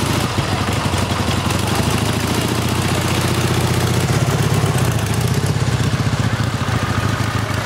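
Ursus C-330 tractor's two-cylinder diesel engine running at low speed as it passes close by, a steady low chugging that grows loudest about halfway through.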